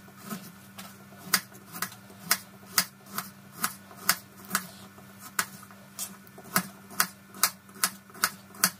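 Knife slicing a carrot into rounds on a plastic cutting board: sharp taps of the blade hitting the board, about two a second at an even pace.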